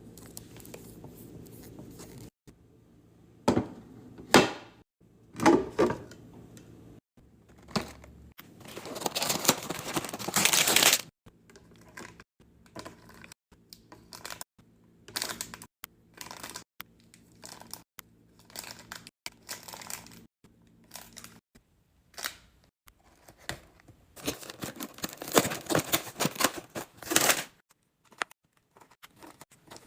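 Restocking handling sounds: plastic packaging crinkling and tearing in two longer rustling stretches, between many short clicks and knocks of items and containers being set down.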